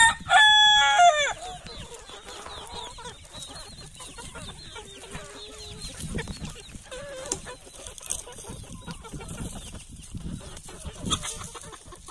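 A rooster crowing, the end of the crow falling away about a second in, then soft clucking from a flock of hens.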